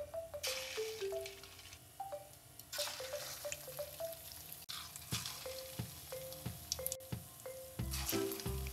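Egg-coated misoa cakes frying in hot oil in a wok: a steady sizzle that swells each time another piece is lowered in. Background music with short plucked notes runs under it, with a bass beat coming in near the end.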